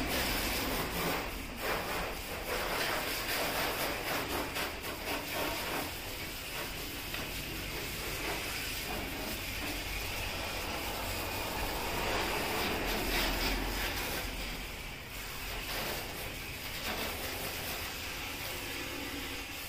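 Water spraying from a garden hose nozzle onto a car's body and wheel, a steady hiss of spray with splashing.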